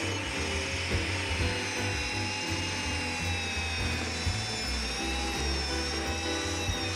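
Electric mortising machine starting up suddenly and running with a steady high whine as its chisel is levered down into a timber, cutting a mortise. Background music plays underneath.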